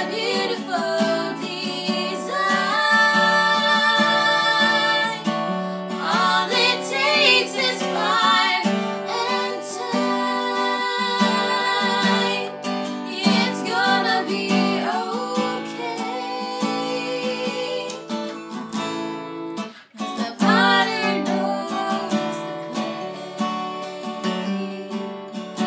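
Two women singing to an acoustic guitar accompaniment, with vibrato on held notes. The singing pauses briefly about three-quarters of the way through, then resumes.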